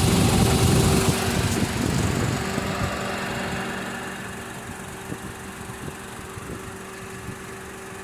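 2007 Honda CR-V engine idling with its air-conditioning compressor running, the compressor clutch now engaged after its air gap was reduced. A steady mechanical hum that grows fainter over the first few seconds, then holds steady.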